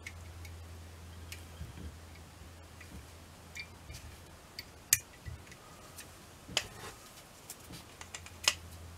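Small irregular metallic clicks and taps of brass clock wheels and plates being fitted together in a W. Würth & Co torsion clock movement, a few sharper clicks in the second half, over a faint steady low hum.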